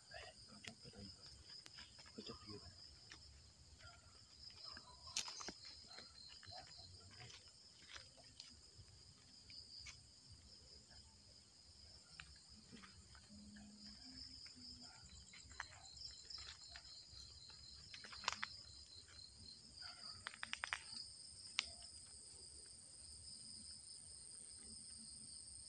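Faint steady chorus of night insects trilling at a high pitch, with a few faint clicks and knocks scattered through it.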